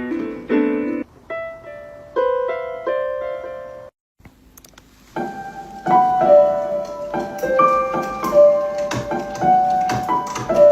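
Background piano music: single notes that ring and fade. It stops briefly about four seconds in, then comes back with a busier melody.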